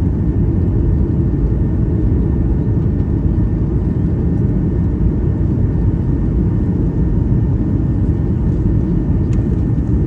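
Steady low rumble of a jet airliner's engines and airflow, heard from inside the passenger cabin in flight. A faint click comes near the end.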